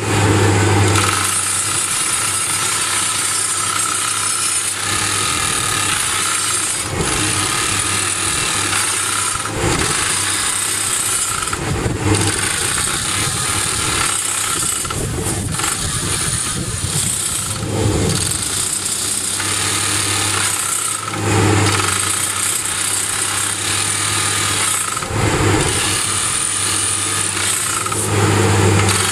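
SOOSAN STD14E top-hammer drill rig drilling rock: its TD45 hydraulic rock drill (drifter) hammering and rotating the drill rod over the steady drone of the rig's engine. The noise is loud and continuous, swelling briefly every few seconds.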